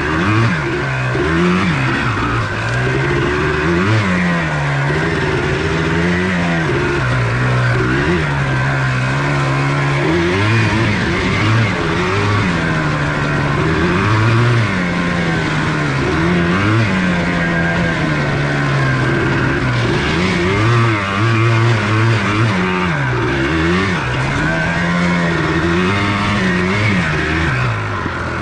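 1994 Yamaha Blaster 200's single-cylinder two-stroke engine being ridden hard, revving up and dropping back again and again every couple of seconds.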